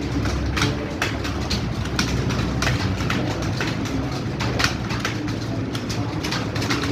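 Fast typing on a computer keyboard: a rapid, irregular run of key clicks, several a second, over a low steady hum.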